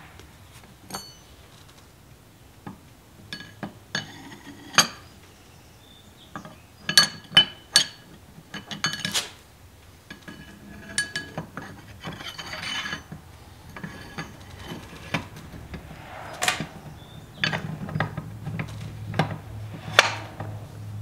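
Steel and cast-iron parts of an antique lathe headstock clinking and clanking as the spindle and its gears are handled and fitted, with a long steel rod worked into the spindle. The sound is a series of sharp metallic knocks with a ringing tone, plus a few short scraping rubs.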